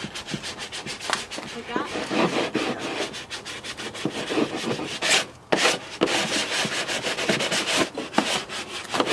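Hand sanding along the freshly cut edge of a plastic car bumper cover, quick repeated rubbing strokes.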